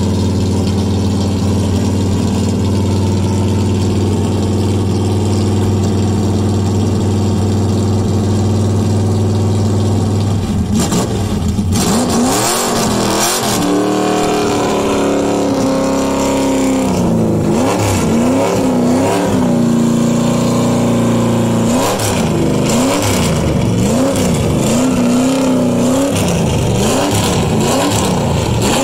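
Shelby GT350-style 1960s Ford Mustang fastback's V8 idling steadily. From about ten seconds in it is revved again and again, the pitch rising and falling with each blip of the throttle.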